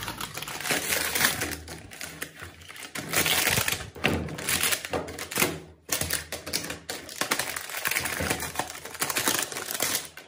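Cardboard packaging and a plastic bag being torn open and crinkled by hand: a dense, irregular run of rips and crackles with a short pause about six seconds in.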